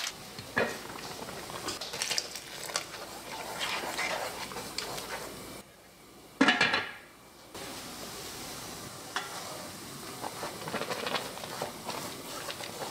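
Pot of somen noodles bubbling under a glass lid. About halfway through, the lid clanks loudly as it is lifted off. Chopsticks then stir the boiling noodles, with light clicks and scrapes against the pan.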